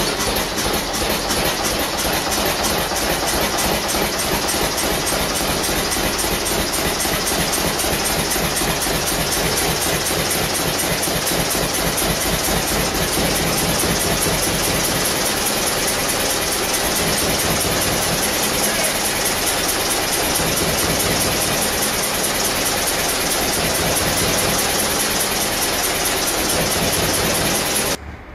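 Old four-cylinder stationary engine with a large flywheel, running steadily with an even beat. It cuts off suddenly near the end.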